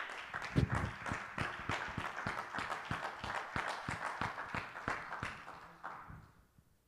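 Congregation clapping and applauding, with sharp, close hand claps standing out among the others, dying away about six seconds in.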